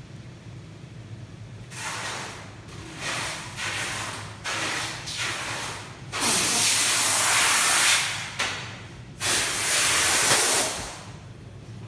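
Plastic film rustling and crinkling in bursts as gloved hands smooth and pull it over resin-wet fiberglass strips on a snowboard mold: a few short bursts, then two longer, louder ones about six and nine seconds in. A low steady hum runs underneath.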